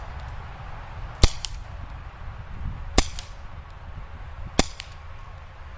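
Elite Force CQB gas airsoft revolver firing three single shots, each a sharp pop about a second and a half apart, with a fainter tick just after each.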